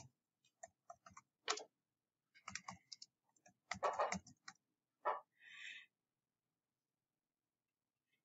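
Light, irregular clicks and taps, with one short scratchy scrape, made while handwriting annotations onto a digital worksheet on a computer or tablet. They stop about six seconds in.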